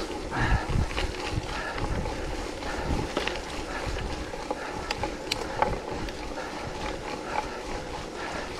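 Wind buffeting the microphone while riding a bicycle, a steady rushing haze with low gusts, broken by a few sharp clicks or rattles about three and five seconds in.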